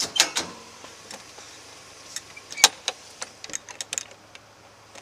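A series of sharp clicks and knocks: two close together near the start, the loudest about two and a half seconds in, then a quick run of lighter ticks.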